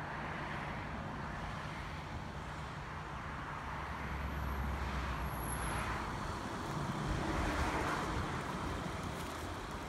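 Road traffic passing: a steady tyre hiss with low rumble, swelling as vehicles go by about four seconds in and again near eight seconds.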